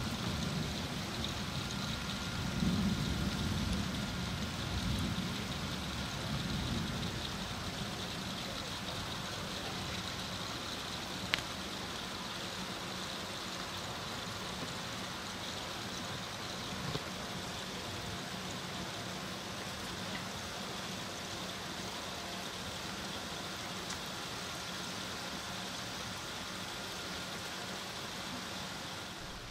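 Steady hiss of rain falling during a thunderstorm, with a low rumble over the first several seconds that dies away, and a single sharp click about eleven seconds in.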